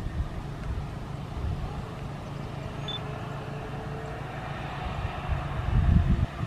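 Jet airliner engines running, a steady rumble with a faint whine, swelling louder and gustier about six seconds in.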